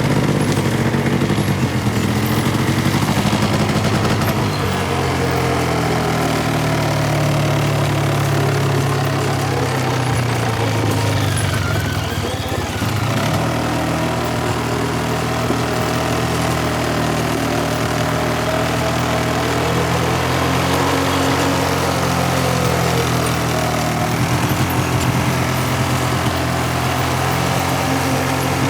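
A small engine running steadily, its pitch shifting a little now and then with a brief change near the middle.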